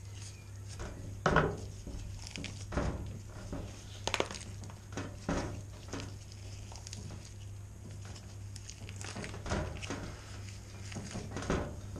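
Handling noises from skinning a rabbit by hand on a wooden chopping board: irregular soft knocks, rubs and scrapes as the skin is pulled back off the carcass, over a steady low hum.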